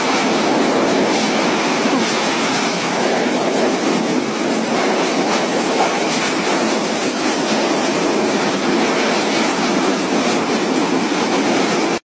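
Cyclone-force wind and driving rain making a steady, loud rush of noise with no let-up.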